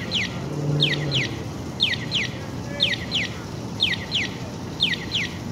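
Small birds chirping: short, quickly falling chirps, mostly in pairs, repeating about once a second over a steady background hum of street noise.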